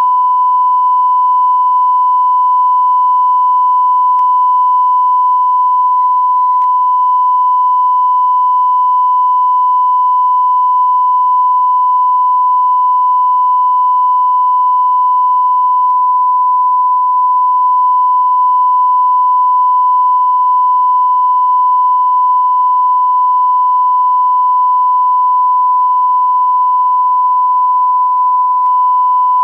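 Steady 1 kHz line-up test tone, the reference tone played with television colour bars, held at one unchanging pitch and level.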